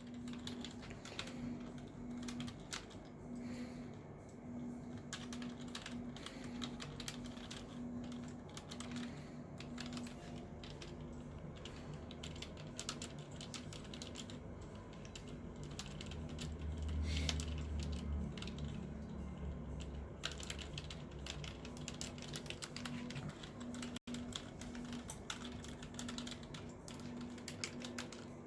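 Typing on a computer keyboard: a continuous stream of rapid key clicks. A low rumble runs under the clicks for a few seconds about halfway through.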